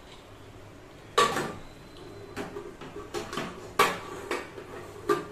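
A steel spoon clinking and scraping against a steel plate while spiced potato filling is scooped out, a series of six or seven sharp clinks.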